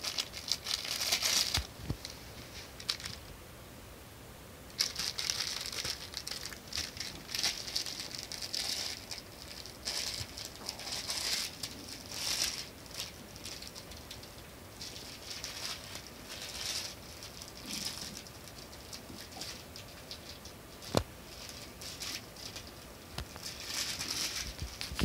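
Yorkshire terrier puppy scrabbling and rustling about on a fleece dog bed and its plush toys: irregular bursts of scratchy rustling with small clicks, a short lull a few seconds in and one sharp click later on.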